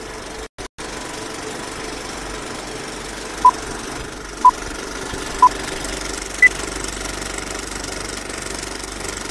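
Vintage film-countdown sound effect: a steady film-projector whirr and rattle with crackle, with a brief double dropout about half a second in. Four short beeps come one a second, three at the same pitch and a fourth, higher one.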